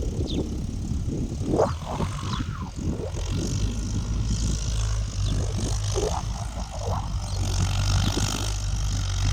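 Tractor engine running steadily as it pulls a plough through the field, a low drone that grows louder about three and a half seconds in.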